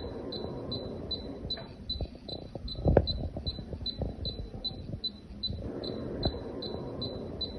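Split air conditioner indoor unit beeping rapidly, about three short high beeps a second: the alarm it gives when it fails to start. A thump about three seconds in, over low handling noise.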